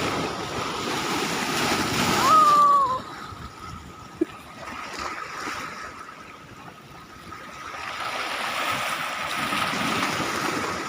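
High-tide seawater surging and washing ashore in waves, loud over the first few seconds, falling back, then building again near the end.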